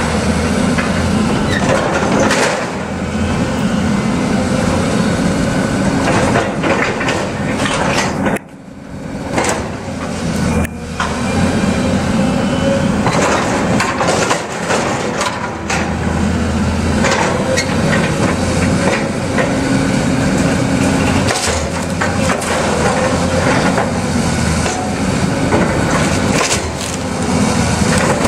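Hyundai tracked excavator's diesel engine running steadily while its bucket breaks apart a wood-frame building: repeated cracking and splintering of timber and crashes of falling debris, with a brief lull about eight seconds in.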